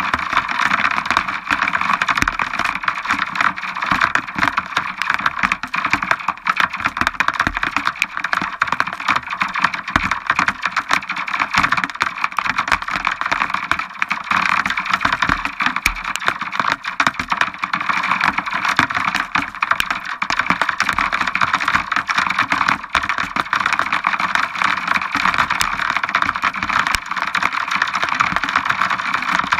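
Heavy rain from a supercell thunderstorm falling hard, a dense, continuous crackle of drops striking a surface.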